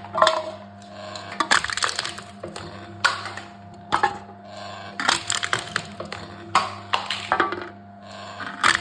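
Aluminum cans being crushed by a machine: clusters of sharp crumpling crackles come in bursts about once a second, each squashing of the metal giving a quick run of cracks.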